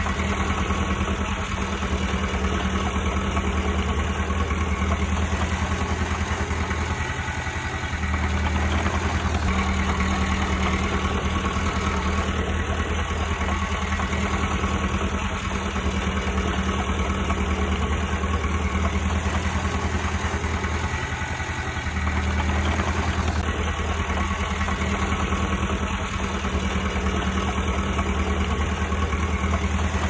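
Komatsu D20P bulldozer's diesel engine running steadily at work, its note dipping and picking up again a few times as the load changes.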